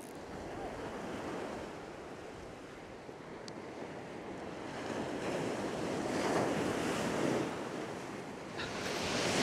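Ocean surf breaking and washing up a sandy beach, swelling louder about five seconds in, with wind on the microphone.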